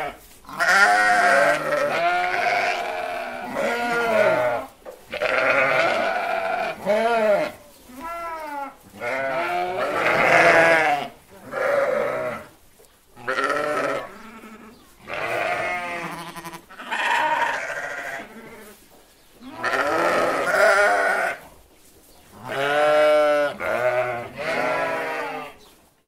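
Sheep bleating one call after another, about a dozen wavering baas of a second or so each, with short gaps between them.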